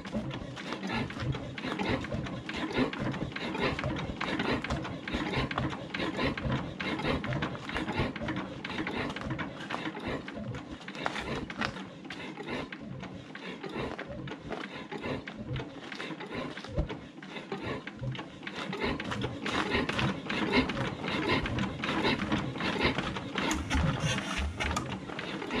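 Two-cylinder diesel engine of a 1961 Zetor 25 tractor being turned over with the hand starting crank on starting spray, a rapid irregular clatter that grows louder toward the end. The engine fires weakly but does not catch.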